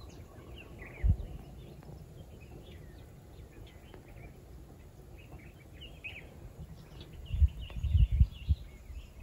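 Outdoor ambience of small birds chirping in short, scattered calls, over a low rumble. A loud low thud comes about a second in, and several more near the end.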